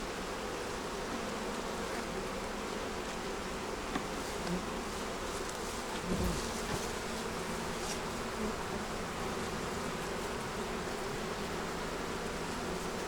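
Honey bees buzzing steadily in a continuous hum. A few soft knocks come between about four and seven seconds in, the loudest a low thump around six seconds.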